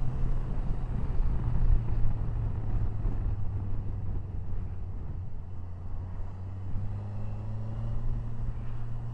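Kawasaki Versys 1000's inline-four engine running at a steady cruise, a steady drone heard under wind and road rumble.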